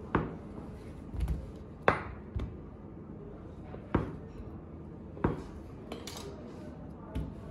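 Large kitchen knife cutting through a block of cheese, the blade knocking sharply on a plastic cutting board at the end of each cut, several times a second or two apart.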